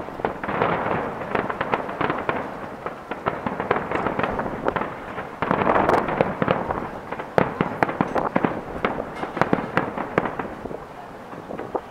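Fireworks display: a dense run of crackling pops and bangs from many bursting shells, heaviest around the middle and thinning out near the end.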